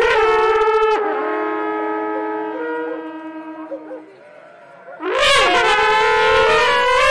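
Three trembitas, long Hutsul alpine horns, blown together in loud overlapping sustained calls with sliding pitches. About a second in the sound drops to quieter held notes that fade away around four seconds in, and after a short lull the loud horn calls start again about five seconds in.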